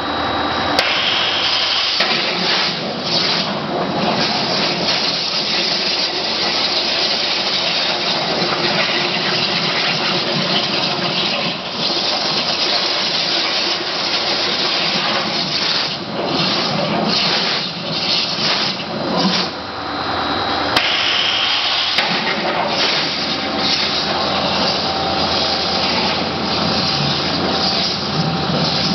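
Abrasive waterjet cutter's high-pressure jet cutting through 5 mm mild steel plate: a loud, steady hiss that briefly drops off a few times.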